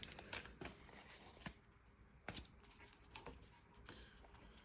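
Faint handling of plastic blister packaging and booster packs: a few soft clicks and crinkles over near silence, the clearest about a second and a half and just over two seconds in.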